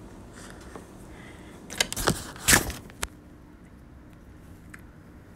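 Phone handling noise: two or three brief rustling scrapes about two seconds in and a sharp click just after, over a faint steady hum.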